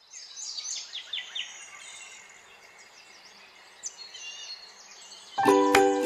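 Songbirds chirping and twittering as a garden background. Music with plucked notes comes in about five seconds in and is much louder than the birds.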